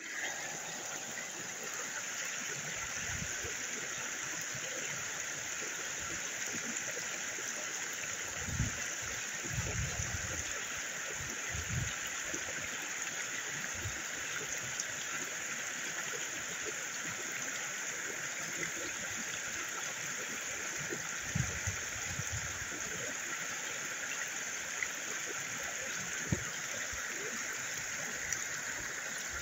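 Creek water running steadily, with a few brief low thumps.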